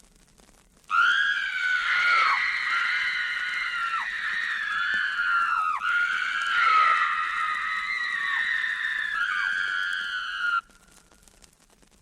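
Sound-effect recording of a person screaming. Two long, high screams are joined by a quick catch of breath near the middle, and the sound cuts off abruptly near the end.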